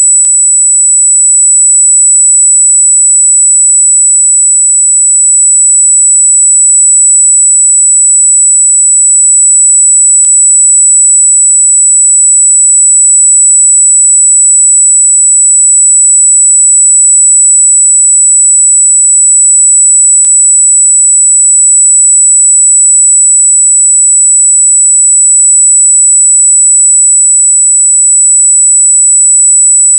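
A continuous high-pitched electronic tone, one steady pitch around 8 kHz, loud and unbroken. Faint clicks come about every ten seconds.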